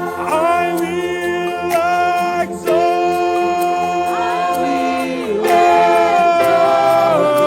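Worship singers holding long wordless notes, sliding between pitches, over steady sustained background music.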